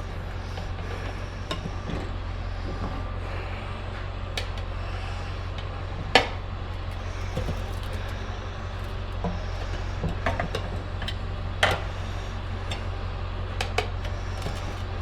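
Metal tire irons clinking and knocking against a motorcycle wheel rim at irregular moments as the rear tire is levered off by hand, the sharpest knock about six seconds in, over a steady low hum.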